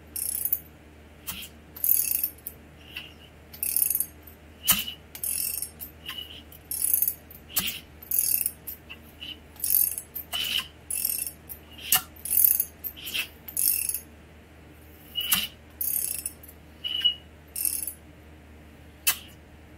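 Hand ratchet clicking in about twenty short strokes, roughly one a second and unevenly spaced, as a freshly rebuilt Mazda 13B rotary engine is turned over by hand on its front eccentric-shaft nut to check that it rotates freely.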